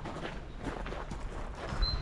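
Footsteps of a person walking, each step a soft irregular tread, with a brief high bird note near the end.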